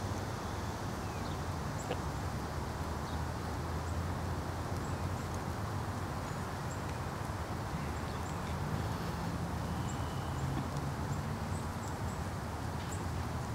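Canada geese grazing, pulling and tearing at short grass with soft crunching, over a steady low outdoor rumble and scattered faint high ticks.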